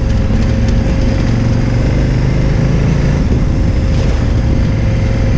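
KTM 990 Adventure's V-twin engine running steadily as the motorcycle rides along a dirt track, with a thin steady tone over the engine.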